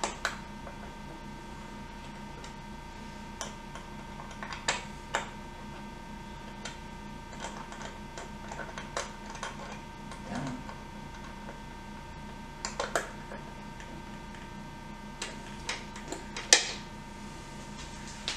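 Scattered small clicks and taps of a hand tool on metal parts as the set screw on a pinball flipper pawl is tightened. The sharpest click comes near the end, over a faint steady hum.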